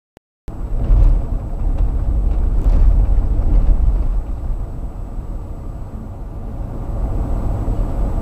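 A car driving along an open road, heard from inside the cabin: a steady low rumble of engine and tyres that cuts in suddenly about half a second in.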